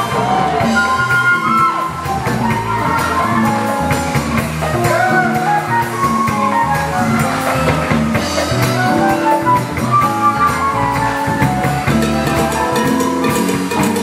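Live band playing upbeat music, a drum kit keeping a steady beat under a melody line of held and bending notes.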